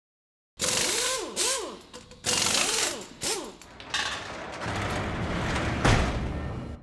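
Mechanical sound effects for an animated title card: two bursts of clattering, ratchet-like noise with short rising-and-falling whines, then a steadier mechanical rush that ends in a sharp hit about six seconds in, the loudest sound.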